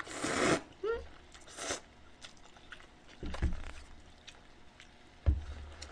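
Tangy soy-sauce noodles slurped from a bowl, a loud suck in the first half-second and a shorter one a little later, then chewing with small wet clicks. Two low thumps on the table come later, around the time the bowl is set down.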